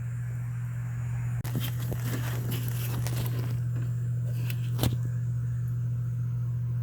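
Steady low hum, with scattered light clicks and rustles of handling and one sharper click about five seconds in.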